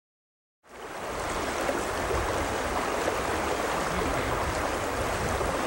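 River water running, a steady rush that fades in after about half a second of silence.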